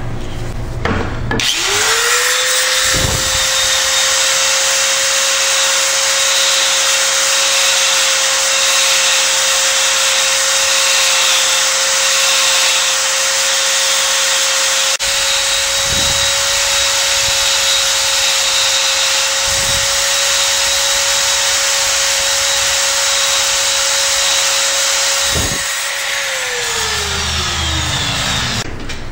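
Electric die grinder spinning up about a second in and running at a steady pitch with a high grinding hiss as its bit elongates the oil hole in a main bearing shell, with a few brief low knocks. It winds down, falling in pitch, near the end.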